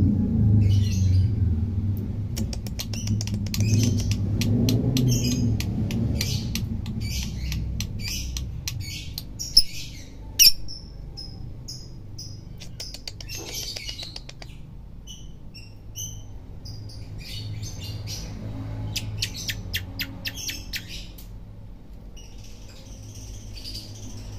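Lovebird chattering a long run of squeaky chirps, rapid ticking trills and short whistled notes, with a brief louder squawk just before the middle.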